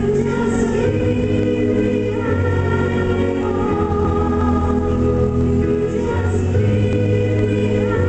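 A woman singing a slow ballad solo into a microphone, holding long sustained notes over instrumental accompaniment with a steady low bass.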